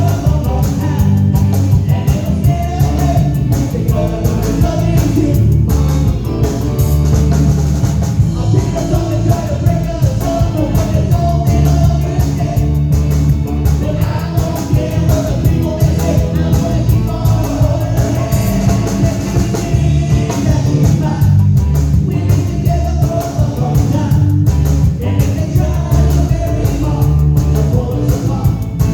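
Rock-and-roll song playing: a lead vocal over drums and electric guitar with a heavy, steady beat.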